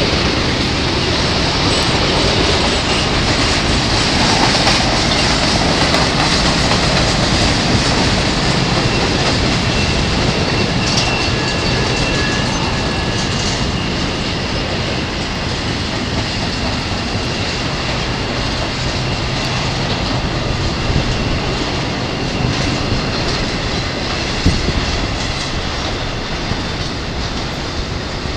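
Intermodal freight train's double-stack container and trailer cars rolling past: a steady rumble of steel wheels on rail with some clickety-clack. A faint high wheel squeal comes in for a few seconds partway through, and a few sharp wheel clicks near the end.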